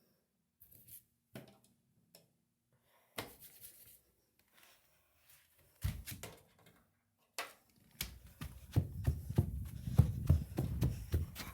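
Handling noise: scattered clicks and a few sharp knocks, then a dense stretch of rumbling and rustling with many small knocks from about eight seconds in.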